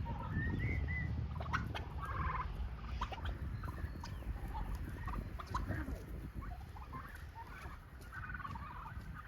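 A flock of Broad Breasted White turkeys calling with many short chirps and yelps, over a low rumbling noise that is loudest in the first few seconds.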